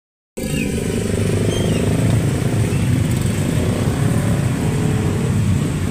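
Steady road-vehicle noise while riding in traffic: a continuous low motor hum mixed with rushing wind and road noise. The sound cuts out completely for a fraction of a second at the very start.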